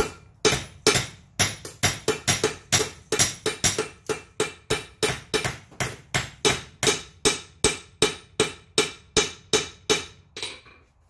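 Hand hammer striking a hot steel bar on an anvil in a steady rhythm of about three blows a second, each blow ringing, stopping shortly before the end. These are half-on, half-off blows forming the shoulder for the bottle opener's flattened hook end.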